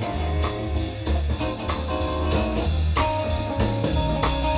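Instrumental jazz-blues band music featuring baritone saxophone: a drum kit keeps a steady beat under a bass line and held notes.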